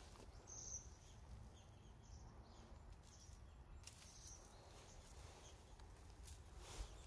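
Near silence: faint outdoor background with a couple of faint, high, brief bird chirps, one about half a second in and one about four seconds in.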